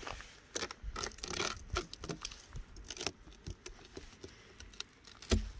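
Footsteps crunching on ice-crusted frozen grass: irregular crisp crunches and scrapes, with one heavier thump near the end.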